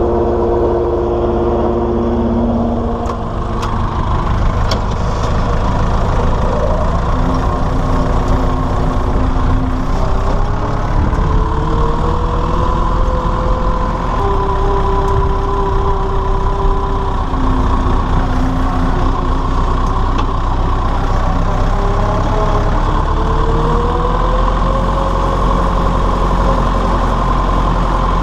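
Massey Ferguson 168 tractor's four-cylinder diesel engine running steadily as the tractor is driven, with a whine whose pitch steps and glides up and down several times.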